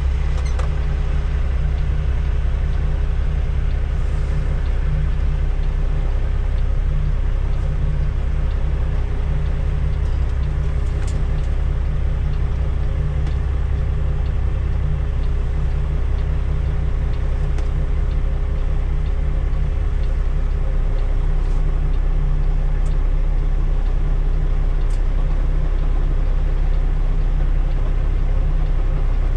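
Semi truck's diesel engine running with a steady low rumble and a faint steady hum above it, as the truck is manoeuvred into a parking spot.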